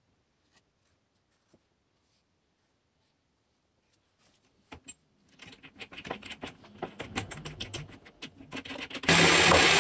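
Near silence, then a run of small clicks and knocks as hands work at a bench drill press chuck. Near the end the drill press motor starts and runs steadily and loud.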